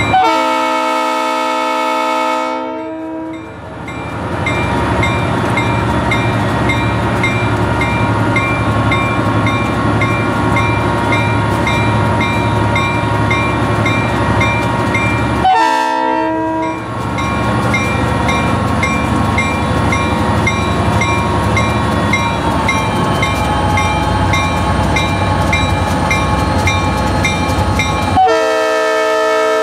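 Diesel freight locomotives with the lead unit sounding its multi-note air horn: a long blast at the start, a shorter one about halfway, and another long blast near the end. Between the blasts the locomotive diesels drone steadily as the train moves slowly, with the locomotive bell ticking about twice a second.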